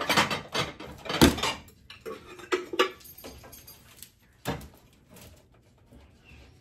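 Pie plates clinking and knocking against each other as they are taken out: a handful of sharp clinks and knocks spread over several seconds, the loudest about a second in.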